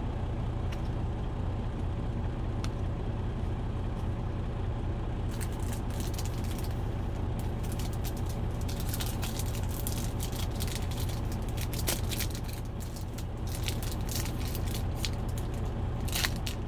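Steady low rumble of an idling truck engine. From about five seconds in there are many small clicks and rustles of trading cards and pack wrappers being handled and separated.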